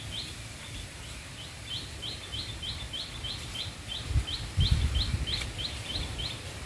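A small bird chirping over and over, about three short high chirps a second, with a low rumble briefly louder about four to five seconds in.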